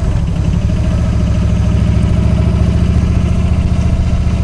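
Yamaha V Star 1300's V-twin engine running steadily while the motorcycle cruises, its low, pulsing note holding an even pitch.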